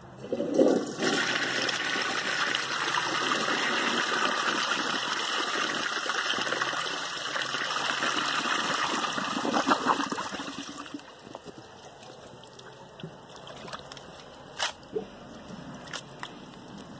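1933 Eljer Texas toilet flushing a dish towel down: a strong rush of water starts about half a second in and dies away after about ten seconds, followed by a quieter background with a few faint knocks.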